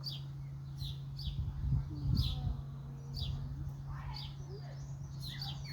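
A small bird chirping over and over, short high chirps that fall in pitch about twice a second, over a steady low hum, with a brief low rumble a couple of seconds in.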